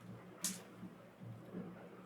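Quiet room tone with a faint steady low hum and a single short click about half a second in.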